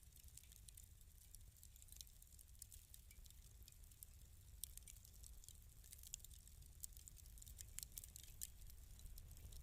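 Wood fire in a fireplace crackling faintly: irregular small pops and snaps over a low rumble.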